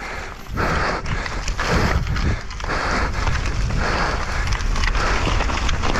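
Downhill mountain bike ridden at race speed over rough ground: wind buffeting the microphone, the bike rattling and clicking, and the rider breathing hard about once a second.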